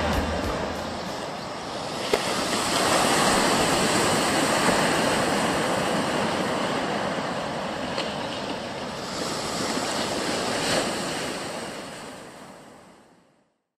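Ocean waves and surf rushing steadily, swelling and easing, then fading out near the end.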